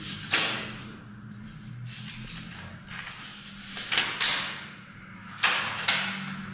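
Pages of a thick book being leafed through quickly, three bursts of paper rustling as handfuls of pages flip over.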